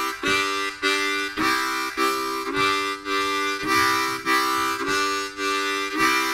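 Diatonic harmonica in C playing chords on holes 1, 2 and 3 in even eighth notes, two draw chords then two blow chords, about two a second: the basic chugging rhythm of a harmonica train imitation.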